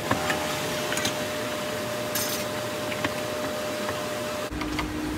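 Hot oil sizzling in a deep-fry pan, with scattered clinks of metal utensils and a steady hum. About four and a half seconds in the sound changes abruptly to a lower hum and rumble.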